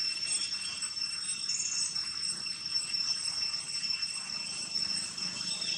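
Steady, high-pitched drone of insects, unbroken throughout, with a couple of brief faint chirps.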